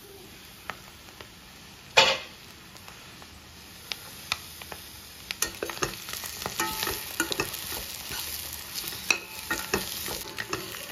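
Boiled egg pieces frying in gingelly oil in a steel pan, sizzling, while a perforated steel spatula stirs and scrapes against the pan with many quick clicks and taps. A single loud metal clank comes about two seconds in. The sizzling and stirring grow louder about halfway through.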